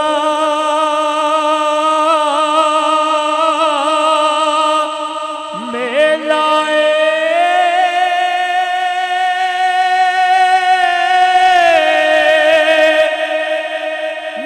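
A man singing a Punjabi devotional naat, drawing out a wordless melismatic passage into a microphone. The line wavers at first, swoops up about five seconds in to a high note held for several seconds, then falls back near the end.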